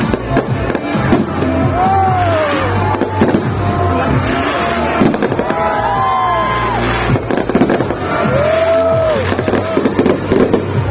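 Fireworks bursting and crackling in quick succession over music playing, with a crowd audible underneath.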